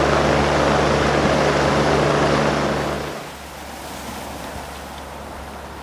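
Search helicopter hovering overhead: a loud, steady rotor and engine drone with a low hum. It cuts off about three seconds in, leaving quieter wind and sea noise.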